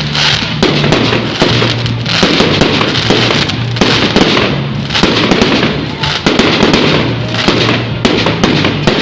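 Fireworks display going off in a rapid, continuous stream of bangs and crackles, with music playing alongside.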